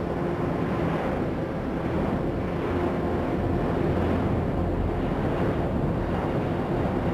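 Steady jet roar of the Airbus A380's four Rolls-Royce Trent turbofans as it flies overhead, swelling slightly midway.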